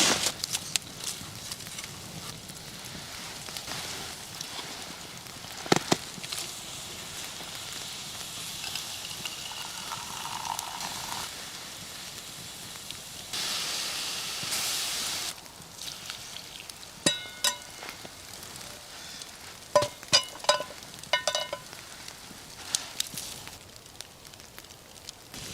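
Fire crackling with a sizzling hiss. Several clusters of sharp ringing clinks come in the second half.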